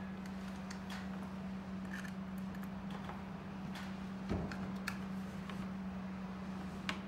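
Light clicks and taps of cables being plugged into a small plastic TV box by hand, with a soft thump a little past the middle, over a steady low hum.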